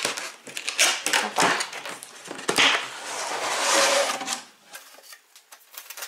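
Large cardboard box being opened by hand: knocks and scrapes of the cardboard, then a longer sliding scrape about three seconds in, then quieter rustling of cardboard and the molded pulp insert.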